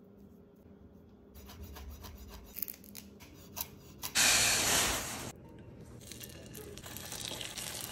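A chef's knife knocking on a wooden cutting board as fresh herbs are chopped, then a loud hiss lasting about a second, then hot oil starting to sizzle in a frying pan as flour-dredged feta goes in.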